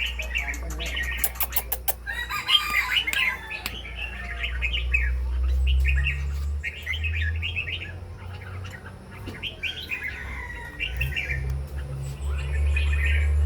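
Small birds chirping in short repeated bursts, with a quick run of sharp clicks about a second in and a steady low hum underneath.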